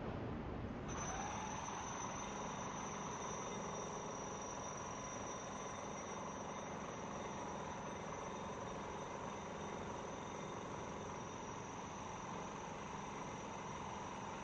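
Steady wash of wind and breaking surf. A steady whine of several pitches comes in about a second in, rising a little as it starts, then holds.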